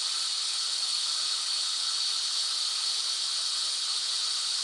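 Steady hiss of a white-noise sleep track, its energy mostly high and even.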